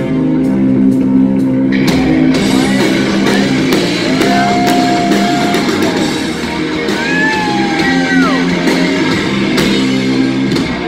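A heavy rock band playing live through a loud PA, with distorted electric guitar, bass and drum kit. Held chords ring under a wash of cymbals.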